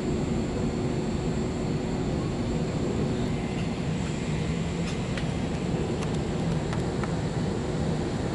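Steady engine and airflow noise of an Airbus A320 airliner taxiing after landing: an even rush with a steady hum that fades out about three seconds in, and a few faint clicks near the end.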